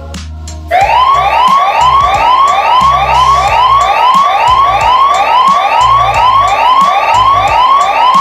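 Emergency alert system alarm: an electronic siren-like tone sweeping upward over and over, about three quick rising whoops a second, starting just under a second in.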